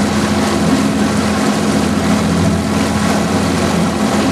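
Motorboat engine running steadily under way, a constant low drone with wind and water noise over it.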